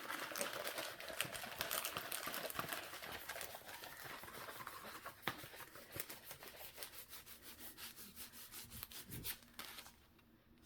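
A diamond-painting canvas under its clear plastic film being folded by hand: crinkling and rustling with many small crackles, thinning out later and stopping shortly before the end.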